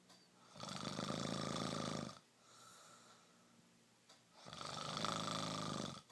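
Snoring: two long snores about four seconds apart, each lasting about a second and a half, with quieter breathing between them.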